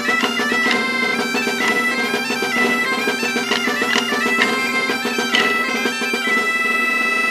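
Traditional folk dance tune played on a reed wind instrument over a steady low drone. The melody moves quickly, then settles on a long held high note from about six seconds in.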